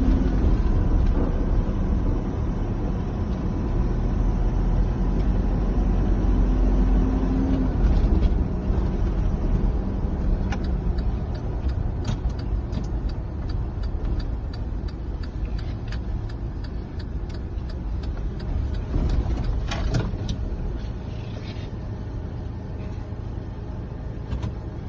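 Mitsubishi Fuso Canter's 4P10 four-cylinder turbo diesel running steadily, a little quieter after about eight seconds. A light regular ticking, about two a second, runs through the middle.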